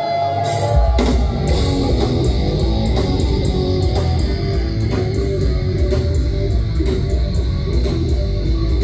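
Live rock band playing loud through the club's PA: electric guitars, bass guitar and drums. A held note at the start gives way under a second in to the full band crashing in together with bass and drums.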